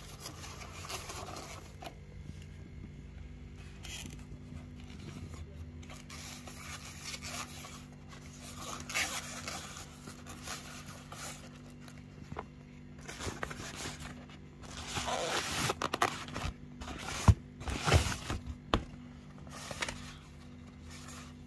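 Camera packaging being handled: intermittent rustling and scraping that gets busier past the middle, with a couple of sharp knocks about two-thirds through. A steady low hum runs underneath.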